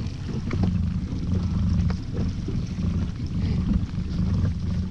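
Steady low rumble of a small boat at sea, with wind on the microphone and a few light clicks.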